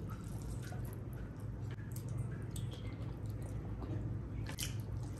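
Wet, squishy eating sounds of curry and rice, with scattered short clicks, over a steady low hum.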